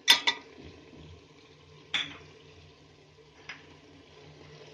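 Kitchenware knocking against a metal cooking pot as salt is tipped into the masala and stirred in: a quick double knock at the start, another about two seconds in, and a faint one near the end, over a faint low hum.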